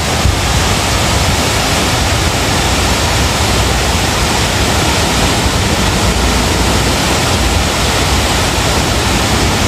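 Water pouring over a wide river weir: a steady, loud rushing.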